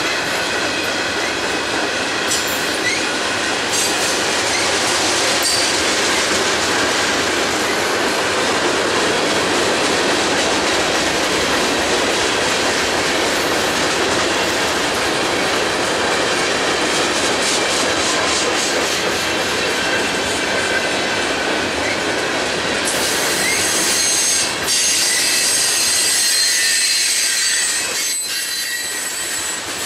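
Freight train of loaded tank cars and boxcars rolling past, steel wheels clattering over rail joints in a steady stream of clicks. High-pitched wheel squeal rides over the rumble and grows stronger near the end.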